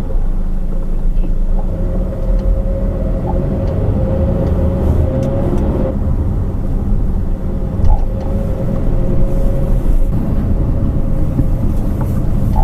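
Honda CR-V running or driving: a steady low rumble of engine and road noise with a faint steady whine.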